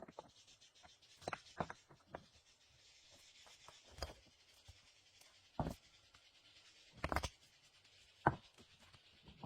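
Scattered sharp knocks and scrapes from handling building material by hand, spaced a second or more apart, over a faint steady hiss.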